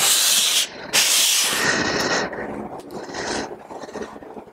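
Cast-iron sole of a Sargent No. 400 series hand plane being lapped on oiled 400-grit sandpaper. There are two long gritty rubbing strokes over the first two seconds, then fainter, fading scraping.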